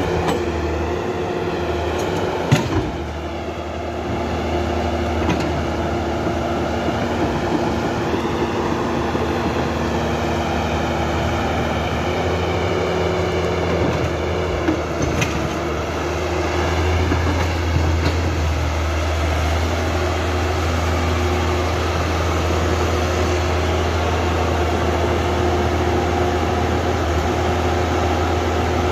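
Remote-control toy excavator working: a steady mechanical drone from its motors and gears, the pitch wavering up and down as the arm and bucket move, with a sharp click about two and a half seconds in and another near the middle.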